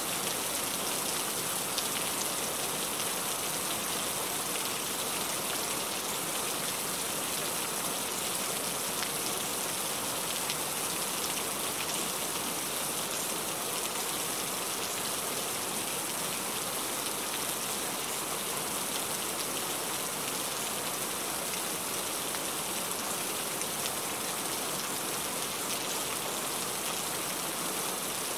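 Heavy rain falling steadily: a dense, even hiss with faint ticks of individual drops.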